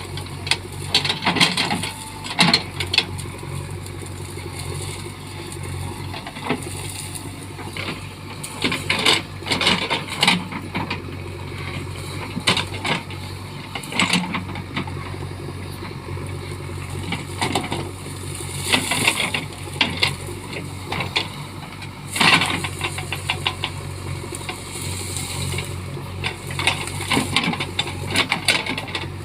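JCB backhoe loader's diesel engine running steadily under work, with repeated sharp cracks, knocks and clatter scattered throughout as the machine clears trees and brush.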